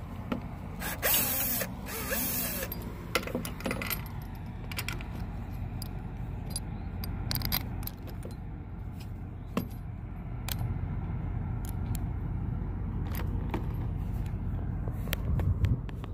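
Scattered light metal clinks and knocks of sign-mounting hardware being handled and fitted, with a scraping rustle about a second in, over a steady low rumble.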